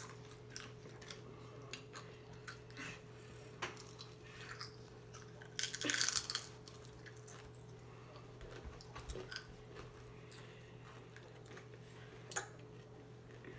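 Tortilla chips being eaten: one loud crunch of a bite about six seconds in, with small clicks and crackles of chewing and of chips handled on a plate. A faint steady hum runs underneath.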